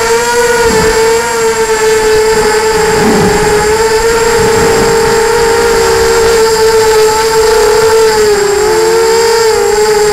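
FPV quadcopter's electric motors and propellers whining loudly, heard from on board: a steady buzzing tone whose pitch wavers up and down with the throttle, dipping briefly near the end.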